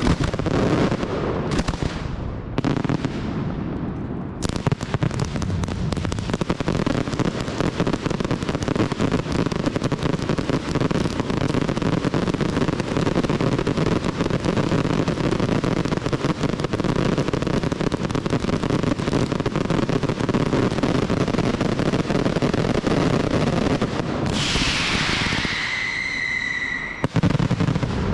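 Aerial fireworks display. A few separate bangs are followed, from about four seconds in, by a dense, unbroken barrage of rapid bangs and crackle lasting some twenty seconds. Near the end a whistle falls in pitch above the barrage, and then the barrage stops suddenly.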